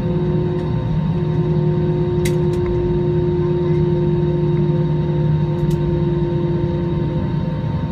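Airbus A320-216 heard from inside the cabin while taxiing: a steady hum of its CFM56 engines at low taxi thrust over a low rumble, with a few faint cabin ticks.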